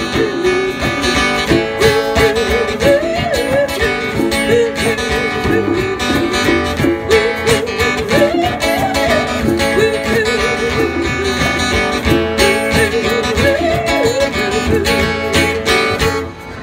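Small live acoustic band playing a country-rock tune: strummed acoustic guitar and a hand drum under a lead melody line that bends in pitch. The music stops just before the end.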